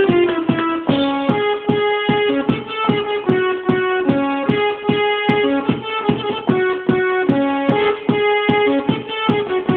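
Yamaha portable electronic keyboard playing a melody of held notes, one at a time, over a fast, even pulse.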